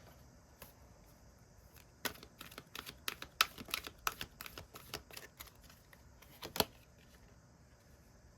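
Tarot cards being handled: a quick run of irregular card clicks and taps for a few seconds, with one last sharper snap near the end, over a faint steady hiss.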